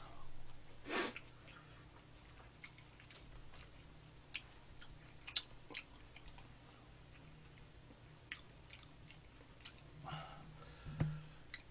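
Quiet eating sounds: chewing, with scattered light clicks of chopsticks against plates.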